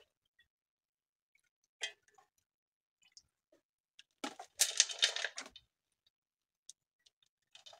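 Handling noises: a single knock about two seconds in, then about a second and a half of clattering and scraping near the middle.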